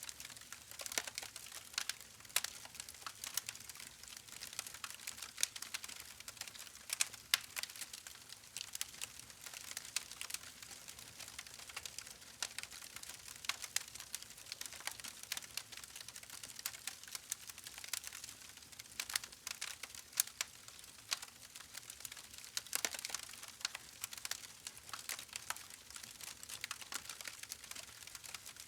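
Campfire burning: wood crackling with many irregular sharp pops and snaps over a soft hiss.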